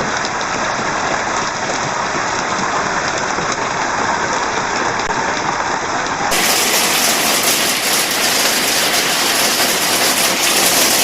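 Heavy rain pouring down in a steady rush, a little louder after a cut about six seconds in.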